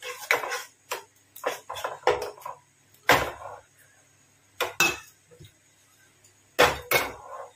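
A spatula knocks and scrapes in a non-stick pan as milk is stirred into a butter-and-flour roux, with clinks of a steel bowl. The knocks come one at a time with short gaps, the loudest about three seconds in and a pair near the end.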